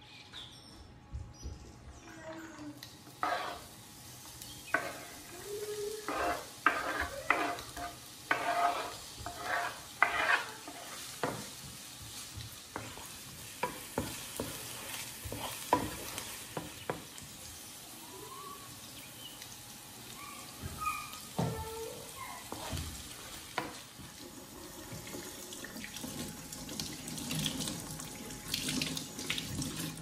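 Chopped onion sizzling in hot sunflower oil in a nonstick frying pan. The sizzle starts about two seconds in, and a wooden spatula scrapes and knocks against the pan as the onion is stirred.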